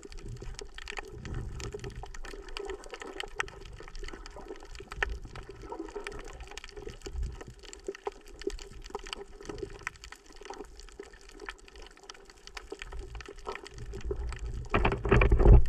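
Underwater sound over a coral reef: a dense, steady crackle of small clicks with a low, muffled rumble of moving water. Near the end comes a louder rush of water, the loudest part.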